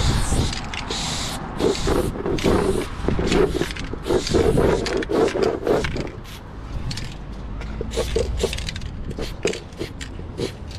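Aerosol spray paint can hissing in short bursts, stopping and starting as a tag is sprayed onto an OSB wooden board. A lower, mid-pitched sound comes and goes underneath, strongest from about two to six seconds in.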